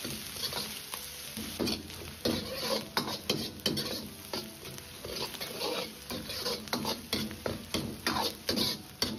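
Metal wok ladle scraping and turning minced pork with scallion and ginger around an iron wok, with oil sizzling underneath; uneven strokes about twice a second. The aromatics are being stir-fried over medium heat to bring out their fragrance.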